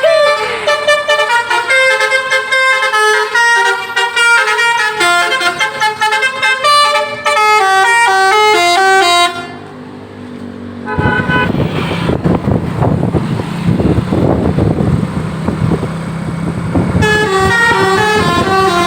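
Indonesian bus 'telolet' multi-tone air horns of the Basuri type, several horns sounding at once and stepping through a quick melody, the notes changing a few times a second. About nine seconds in the horns stop. After a brief lull comes a loud stretch of passing-vehicle noise, and the horn tune starts again near the end.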